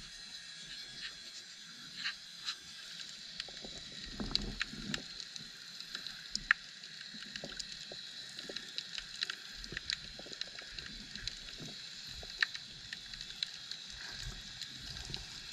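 Underwater ambience in shallow water, heard through a submerged camera: a steady hiss with many scattered sharp clicks and crackles and a few dull low thumps.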